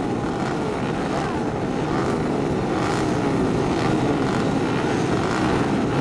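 Several 110cc racing motorcycle engines running together, a steady drone whose pitch wavers slightly up and down as riders blip their throttles while waiting for the start.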